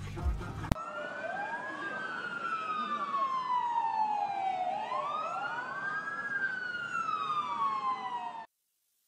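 Two emergency-vehicle sirens wailing at once, out of step, each rising quickly and then falling slowly over a few seconds, over street noise. The sirens cut off abruptly near the end. A moment of music plays before them.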